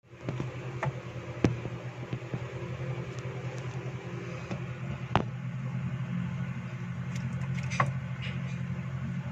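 Steady low mechanical hum with a few short, sharp clicks.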